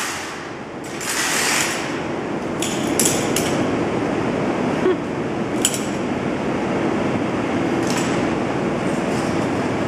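Steady background noise of a large store with a few light metallic clinks.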